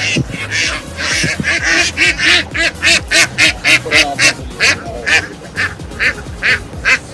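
A flock of country ducks quacking, with many short, rasping quacks overlapping at about two to three a second.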